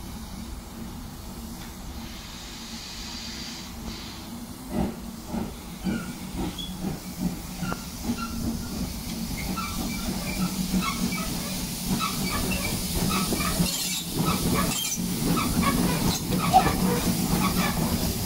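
Small steam saddle tank locomotive moving slowly past at close range. Soft exhaust beats start about five seconds in, roughly two a second, with steam hissing and light metallic clicking from the wheels and motion. It grows louder as it nears.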